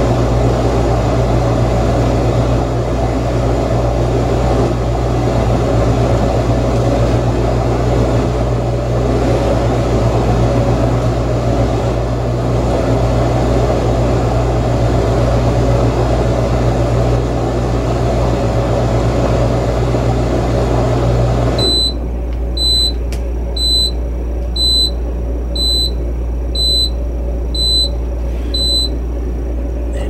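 Haier HDC1804TW countertop dishwasher's motor running with a steady hum and water noise, cutting off suddenly about two-thirds of the way through. A regular series of high beeps follows, about one a second, eight in all: the dishwasher signalling that its heavy cycle has finished.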